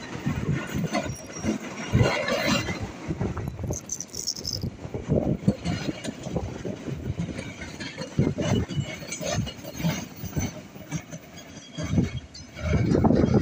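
Passenger train coaches rolling past at close range, their wheels clattering and knocking irregularly on the rails over a steady rumble, louder near the end.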